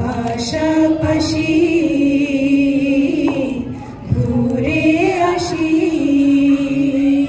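A group of men and women singing a Bengali song together into microphones, in two long held phrases with a short break about four seconds in.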